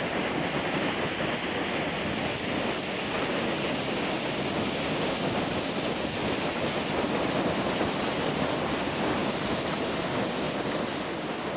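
River rapids: wide whitewater rushing and churning over rock ledges, a steady, unbroken rush of water.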